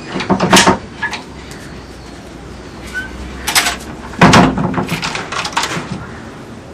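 A door being handled: a run of sharp wooden knocks and rattles, the loudest cluster about four seconds in, followed by several quicker clicks.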